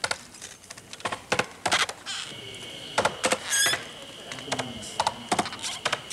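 Axes chopping by hand into the trunk of the sacred hinoki being felled: irregular sharp chops, sometimes two or three close together, some with a short ring. A thin steady high tone sounds from about two seconds in.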